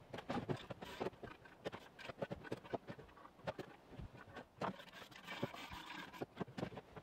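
Irregular light clicks, knocks and scrapes of hand tools on metal as a clutch pressure plate is fitted and bolted onto an engine flywheel.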